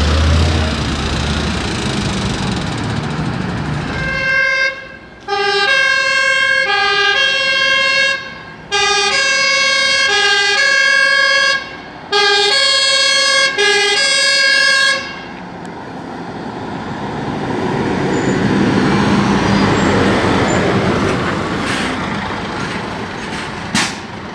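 Fire engine's two-tone siren sounding for about ten seconds, alternating between a lower and a higher note, each held under a second, with a few short breaks. Before and after it, the heavy diesel engines of fire trucks run and drive past, and a single knock comes near the end.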